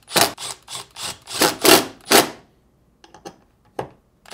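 Cordless driver with a T25 Torx bit running screws down into a steel refrigerator door hinge, in a run of short bursts. It stops about two seconds in, and a few light clicks follow before the next burst at the very end.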